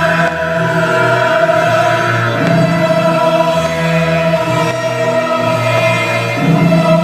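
Show soundtrack: orchestral music with a choir singing long held notes over a shifting bass line.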